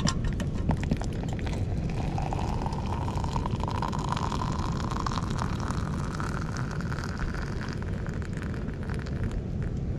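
Hot water pouring from a stovetop kettle into an AeroPress chamber onto coffee grounds. The pour's pitch rises steadily as the chamber fills, over a steady low rumble.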